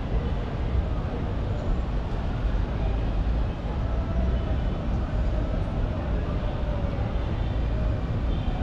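Downtown city street ambience: a steady low rumble of traffic with faint voices of passers-by.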